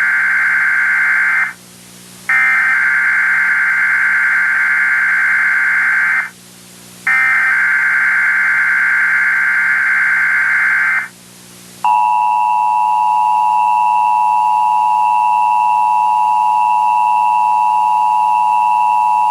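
Emergency Alert System tones: three long digital data bursts of the SAME header, each about four seconds with a short gap between, then, about 12 seconds in, the steady dual-tone EAS attention signal, held for about eight seconds and cutting off just before the end.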